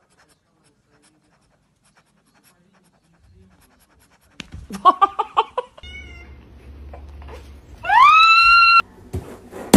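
Domestic cat meowing: a quick run of short calls about halfway through, then one loud long meow that rises and holds before cutting off suddenly.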